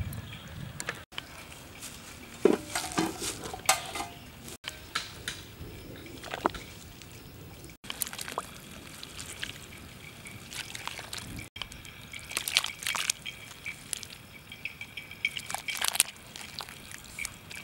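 Water sloshing and splashing in a large metal cooking pot as pieces of raw meat are rubbed and washed by hand, heard in several short edited cuts with scattered drips and splashes.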